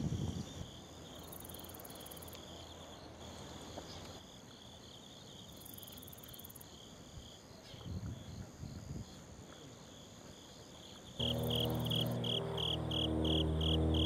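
Insects chirping outdoors in a steady pulsing trill, with higher buzzing that comes and goes. About eleven seconds in the sound changes abruptly and gets louder: held low notes like background music, with a loud regular chirp about three times a second.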